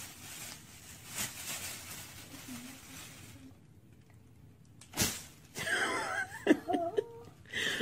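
Clear plastic bag rustling and crinkling as a child pulls a pillow out of it, then a single soft thump about five seconds in, followed by a small child's wavering, whimpering voice near the end.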